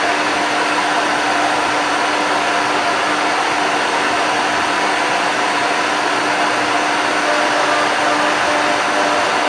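Stepmores 1325HL ATC CNC router's spindle running steadily while it cuts an engraving into a door: a constant whine over an even rushing noise, with no change in pace.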